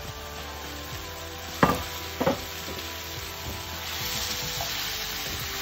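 Cut okra sizzling in hot oil in a frying pan as it is tipped in and stirred with a silicone spatula. Two sharp knocks come about a second and a half and two seconds in. The sizzle grows louder near the end as the okra is stirred through.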